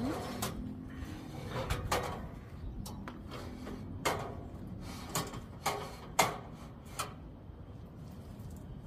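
Aluminium extension ladder being pushed up and adjusted, its sliding section clanking against the rungs in a series of sharp metallic clacks at irregular intervals, the loudest about six seconds in.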